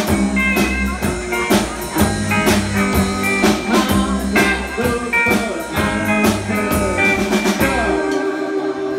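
Live rockabilly band playing: electric guitar over a drum kit and double bass, with a steady beat. Near the end the low bass notes drop out, leaving drums and guitar.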